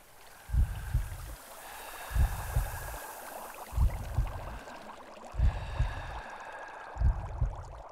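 Water splashing and bubbling sound effect, with a deep thump repeating about every second and a half.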